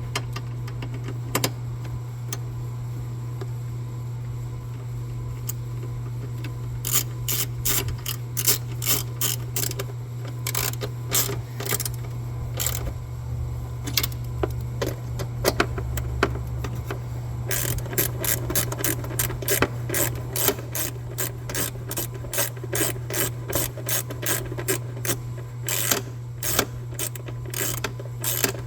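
Hand ratchet wrench clicking as 8 mm bolts are tightened down. The clicks come in short runs of strokes from several seconds in and turn fast and nearly continuous about two-thirds of the way through, over a steady low hum.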